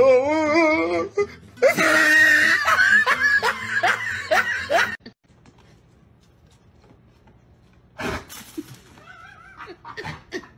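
People laughing hard, a wavering laugh at first and then several voices, breaking off suddenly about five seconds in. After a quiet stretch comes a single knock about eight seconds in.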